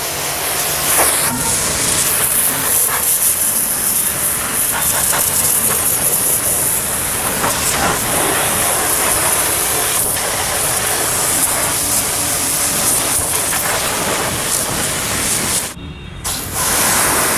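High-pressure water jet from an 1800 W electric pressure washer hissing steadily as it sprays a car's door and wheel. The spray breaks off for about half a second near the end, then starts again.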